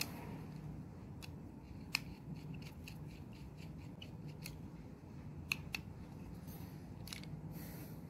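Irregular small metallic clicks and taps from a screwdriver and loose brass contacts and screws being handled while a magnetic contactor is taken apart, with a short scraping rub near the end.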